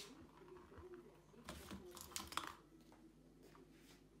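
A cat batting at a plastic ball-track toy: a cluster of faint clicks and rattles between about one and a half and two and a half seconds in.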